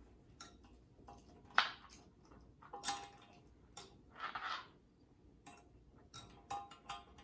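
Faint small metallic clicks and taps, with a brief scrape, from hands fitting the metal gasket plate onto a faucet's threaded mounting rods against a porcelain sink.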